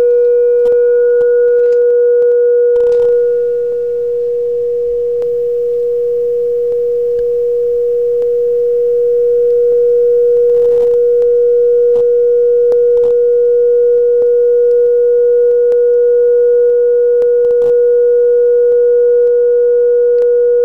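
Flame-heated glass-tube thermoacoustic engine singing a steady, pure, mid-pitched tone with faint overtones. The tone dips slightly in loudness about three seconds in, and there are a few faint clicks.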